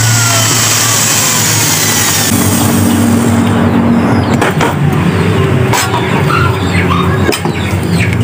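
A claw hammer drives a small nail into the wooden picture frame's corner with several sharp taps in the second half. Under them a steady engine-like hum runs throughout and is the loudest sound.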